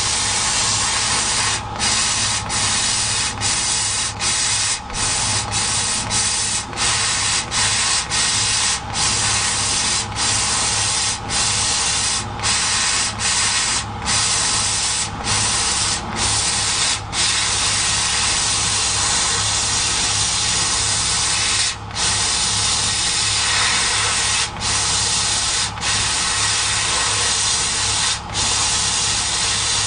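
CO2 laser cutting machine cutting 4 mm wood: a loud, steady hiss of air and burning at the cutting head over a low hum. The hiss breaks off for split seconds many times, often in the first half and only a few times later.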